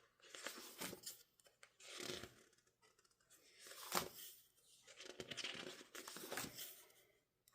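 Pages of an album photobook being turned by hand: soft paper swishes every second or two, with one sharper page flap about four seconds in.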